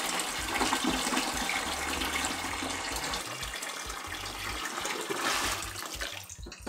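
Water pouring steadily, aquarium water draining through a siphon hose into a bucket; it fades and stops about six seconds in.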